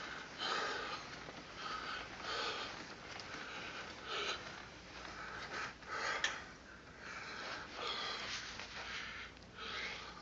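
A person breathing heavily close to the microphone, short noisy breaths about once a second, with one sharp click about six seconds in.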